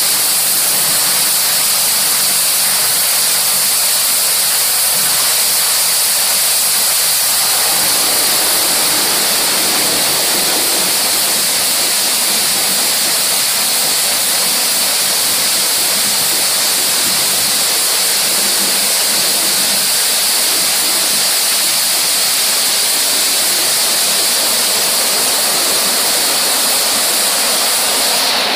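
WashTec rollover car-wash machine spraying water over a car while its rotating brushes scrub the body: a loud, steady rushing hiss of water spray. A faint low machine hum underneath stops about a quarter of the way in.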